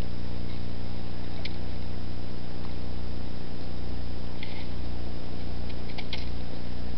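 A steady, even low hum throughout, with a few short crunches as an Old English Sheepdog bites into snow, one about a second and a half in and more near the end.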